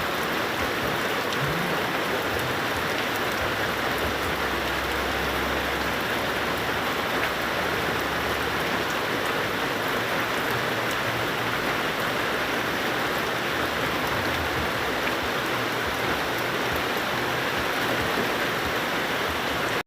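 Steady heavy rain falling, a dense even hiss with scattered drop ticks.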